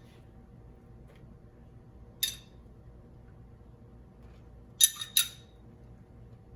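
A spoon clinking against a container while sauce is spooned out: one light clink a little over two seconds in, then two quick clinks close together about five seconds in.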